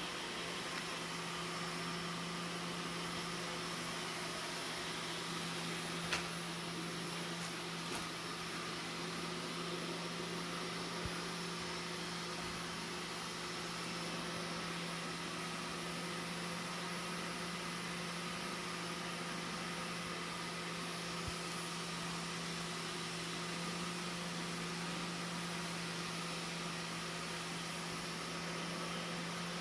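Household vacuum cleaner running steadily with an even low hum, and a light knock about six seconds in.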